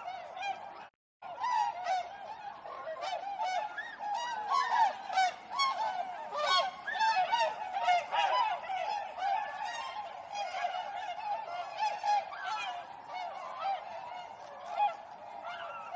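A flock of swans honking, many short calls overlapping at once, with a brief gap of silence about a second in.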